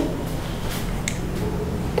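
Steady low background hum, with a couple of faint light clicks in the middle.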